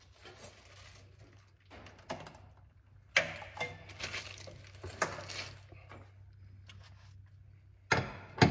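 Scattered metal clinks and knocks from tools and parts being handled under a car, with two sharper, louder knocks near the end, over a steady low hum.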